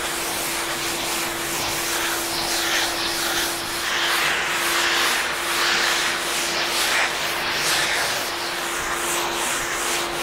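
A long hand sanding board (fairing board) rasping over the cured epoxy of a wooden kayak deck in back-and-forth strokes, about one a second, fairing the surface. Under it a shop vacuum hooked to the board drones steadily, drawing off the dust.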